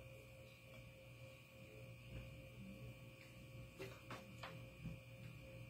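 Near silence with a steady faint electrical hum; a few faint soft clicks around four seconds in.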